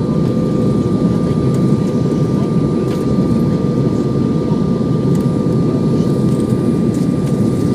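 Passenger airliner in flight, heard from the cabin: a steady, dense low rumble of engines and airflow with a steady tone above it, unchanging throughout.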